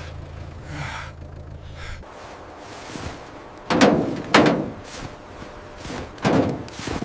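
A steady low hum that cuts off about two seconds in, then three heavy thuds, the loudest near the middle.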